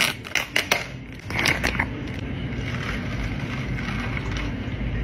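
Ice in a plastic cup clinking and crackling under a metal spoon, a few sharp clicks in the first two seconds. Then a drink is poured from a carton over the ice, a steady pouring hiss.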